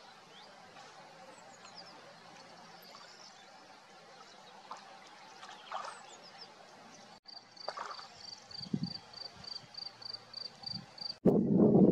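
Gentle splashing and lapping of water as a Eurasian otter swims at the surface, over quiet natural ambience. In the second half a high short note repeats about three times a second. Just before the end a sudden loud rush of wind on the microphone takes over.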